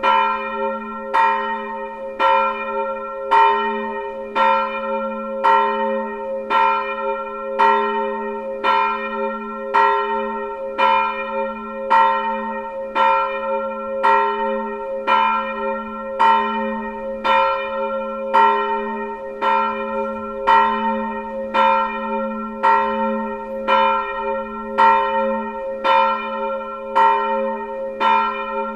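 A single church bell, the tower's second bell, tuned to A-sharp, swinging and ringing alone. Its clapper strikes about once a second in an even rhythm, and each stroke rings on into the next under a steady low hum note.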